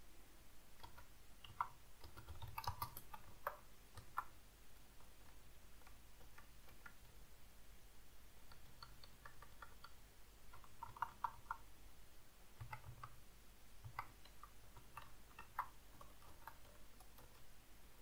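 Faint, irregular keystrokes on a computer keyboard, coming in short scattered runs of a few taps.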